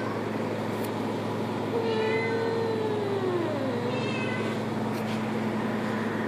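A cat gives one long, drawn-out yowl about two seconds in, lasting about two seconds and sliding down in pitch at its end, the calling of cats during mating. A steady low hum runs underneath.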